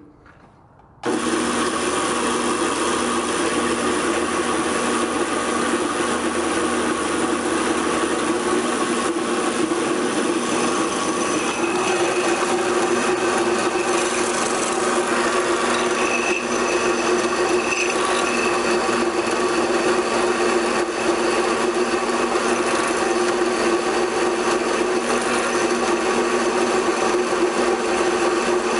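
Drill press with a DC treadmill motor starts about a second in and runs steadily, a whine with several steady tones over cutting noise, as a 1/4-inch bit drills a pilot hole through steel plate.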